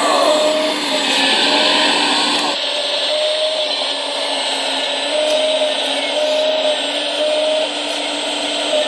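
Radio-controlled model excavator working, with a steady whirring motor noise and a short tone that recurs every second or so. The sound changes abruptly about two and a half seconds in.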